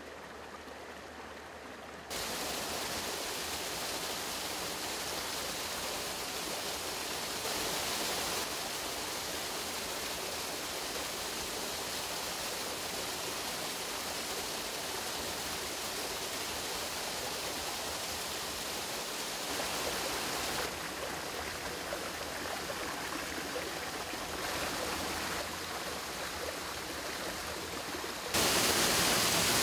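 Running water of a stream: a steady rush that jumps abruptly louder or quieter several times, loudest near the end.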